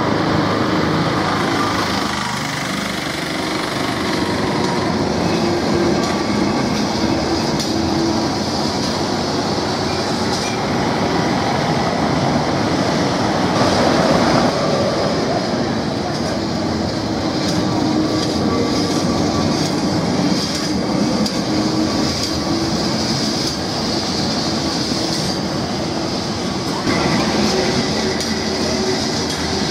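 Lisbon's yellow Remodelado heritage tram running on street rails: a steady rumble from the tramcar, with a high squeal from its steel wheels on the curving track.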